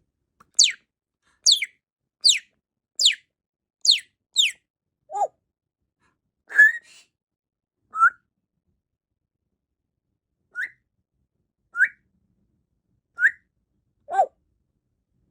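African grey parrot whistling: six quick whistles, each sweeping down from high to middle pitch, in the first few seconds, then single short rising whistles spaced a second or two apart.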